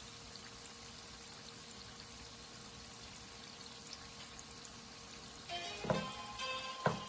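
Filo pastries frying in a pan of hot oil: a low, steady sizzle with fine crackles. About five and a half seconds in, background music with a beat comes in over it and is the loudest sound.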